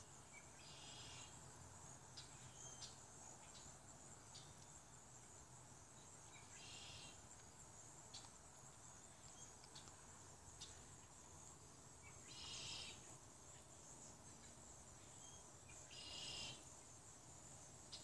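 Faint outdoor ambience of insects: a steady high-pitched drone, with four short buzzy chirps a few seconds apart.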